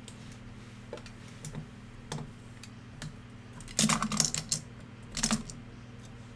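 Typing on a computer keyboard: a few scattered keystrokes, then a quick run of them about four seconds in and another just after five seconds, over a steady low hum.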